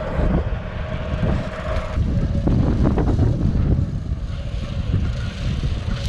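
Tractor running with a rotary slasher engaged, cutting a crop of vetch: a steady low rumble with a faint constant whine above it.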